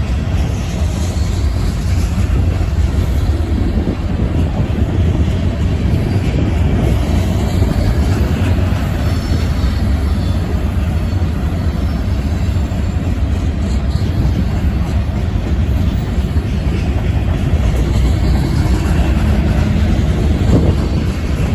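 Union Pacific freight train's cars rolling past, a steady rumble of steel wheels on rail.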